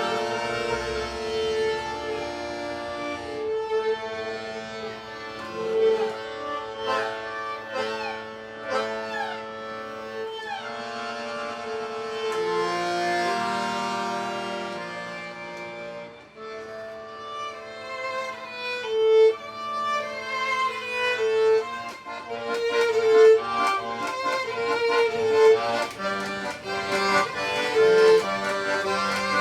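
Live acoustic folk music with no singing: a melody of held notes, some of them sliding. About eighteen seconds in, a livelier passage of sharp, rhythmic note attacks comes in.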